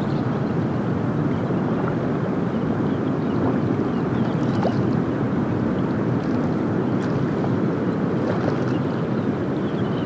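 Steady rushing, churning water noise from the Strokkur geyser, swelling slightly midway, with a few faint high chirps.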